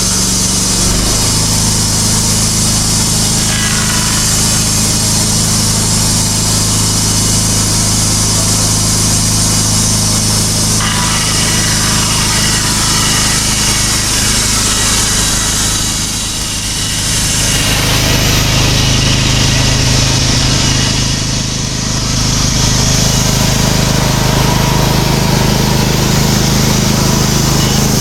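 Wood-Mizer band sawmill running under power, its engine holding a steady pitch while the band blade cuts along a board to take off the live edge. The engine note steps up about a second in, and the sound dips briefly twice in the second half.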